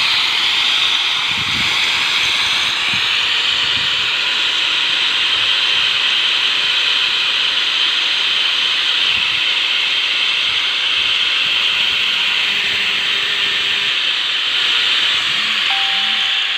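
A power tool grinding the teeth of a hand saw: a steady high hiss of abrasive on steel that runs on without a break.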